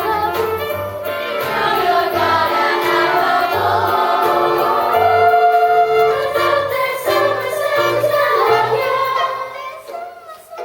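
A group of voices singing a stage-musical song in chorus over backing music with a steady bass line; the music drops away about a second before the end.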